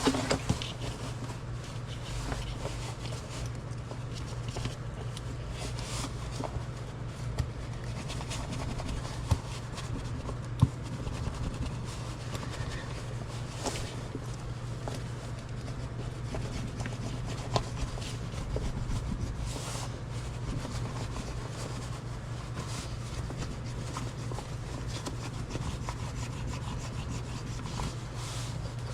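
Hand brayer rolling and rubbing over a drysuit's contact-cemented neck-ring skirt, pressing it flat, with light scraping and a few sharp clicks. A steady low hum runs underneath.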